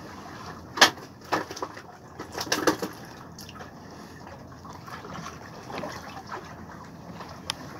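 Water lapping and sloshing against a small fishing boat. Several sharp knocks and clicks come through, the loudest about a second in, a cluster a little after two seconds, and one more near the end.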